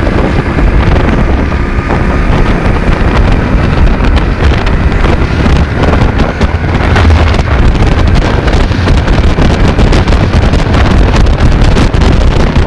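Loud, steady wind buffeting on the microphone of a moving motorcycle, with the motorcycle's engine running underneath.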